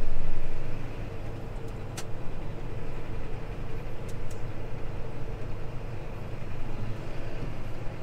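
John Deere tractor engine running steadily, heard from inside the cab as a low drone with a faint steady whine above it. A few light clicks come about two and four seconds in.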